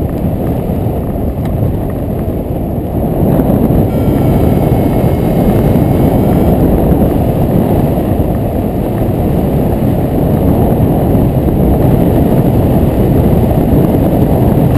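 Loud, steady wind buffeting the microphone of a camera mounted on a hang glider in flight. A faint steady tone sounds for about three seconds partway through.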